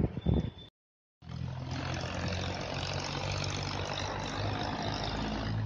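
A steady engine hum, like a motor vehicle idling, with a few low droning tones under a hiss. It comes in after a brief cut to silence near the start.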